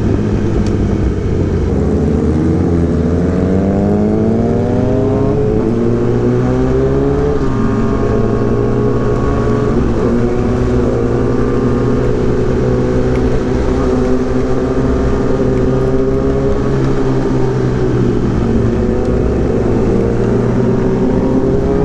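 Kawasaki ZX10R inline-four engine running through an Arrow racing exhaust, rising in pitch twice in the first seven seconds or so with a short break between, then holding a fairly steady note while cruising.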